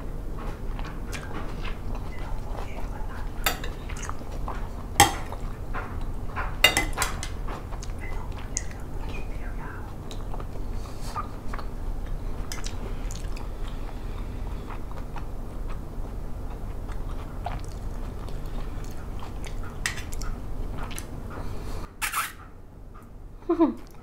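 A woman chewing mouthfuls of squid salad close to a clip-on microphone, with a spoon and fork clinking sharply against the ceramic plate several times.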